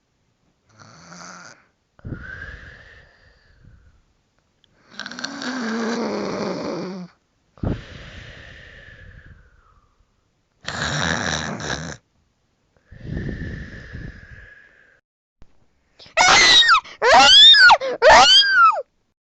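A person snoring in slow, drawn-out breaths, then about sixteen seconds in a loud alarm going off in four quick rising-and-falling tones.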